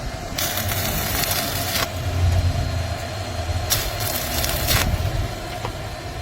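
Handheld 130-amp stick welder striking short runs of arc: two bursts of crackling hiss, each about a second long, over a steady hum from the welder.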